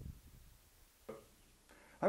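Near silence, with one faint brief sound about a second in.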